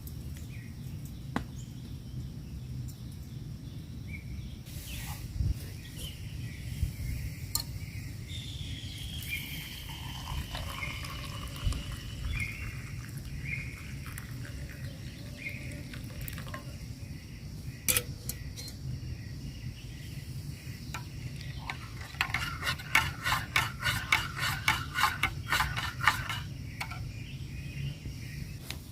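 Outdoor nature ambience: a steady low background rumble with scattered sharp clicks and a series of short high calls in the middle, then a fast run of clicking notes for about four seconds near the end.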